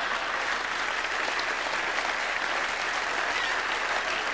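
Large theatre audience applauding steadily: the ovation for a stand-up comedian's punchline.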